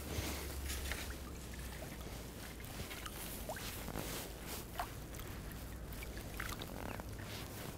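Lake water sloshing and lapping around a person wading waist-deep, with a few light splashes scattered through. Wind rumbles on the microphone for the first couple of seconds.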